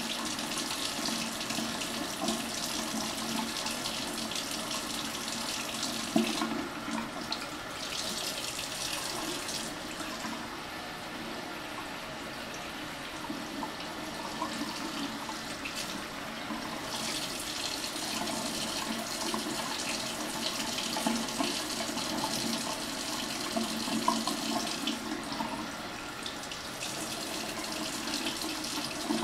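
Bathroom faucet running steadily, its stream splashing into cupped hands and the sink basin. The splashing turns duller for several seconds midway.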